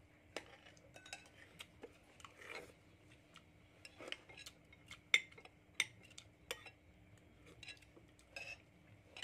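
Metal spoons clinking and scraping against ceramic bowls and plates during a meal, in scattered irregular clinks, the sharpest about five seconds in.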